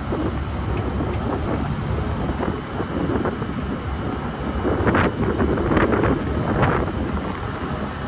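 Wind rumbling across a phone's microphone, with a few brief louder gusts in the second half.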